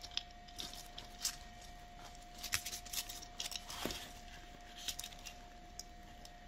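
Faint, scattered rustling and crackling of fir sprigs, holly and moss being handled as a gloved hand works in the moss base of a garland, with irregular small ticks and snaps.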